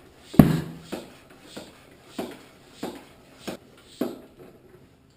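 A floor pump being worked in quick, even strokes, about one and a half a second, inflating a tubeless fat-bike tire to seat its beads on the rim. The first stroke is the loudest and the later ones are fainter.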